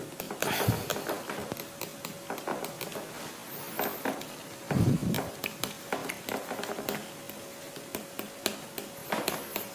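Irregular light taps and clicks, several a second, of a lecturer writing out his notes, with two louder knocks: one about half a second in and one near five seconds.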